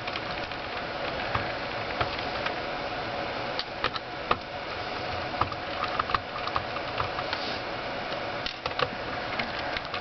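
A screwdriver backing out the small screws of a laptop's hard-drive bay: scattered light clicks and scraping of metal on metal over a steady faint hum.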